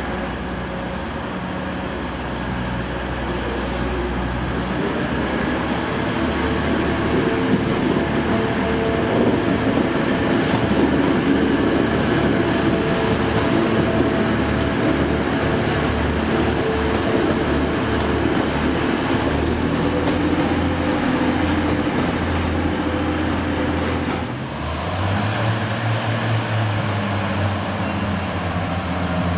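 Class 185 diesel multiple unit pulling away along the platform, its diesel engines and wheels on the rails growing louder over the first several seconds, then running steadily as the carriages pass. About 24 seconds in, the sound changes to a Class 142 Pacer diesel railbus running slowly at the platform with a low, steady engine drone.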